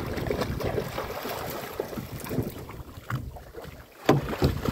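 Wind buffeting the microphone aboard a fishing boat, with two sharp knocks near the end.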